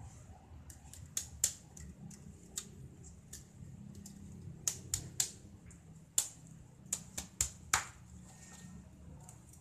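About fifteen sharp, irregular clicks and taps of hard spiny lobster shell being handled with a knife on a wooden cutting board, over a faint low hum.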